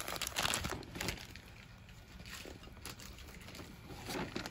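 Rustling and crinkling of a large plastic blind bag and its wrapped items as hands rummage inside, busiest in the first second, then a few light taps and crinkles.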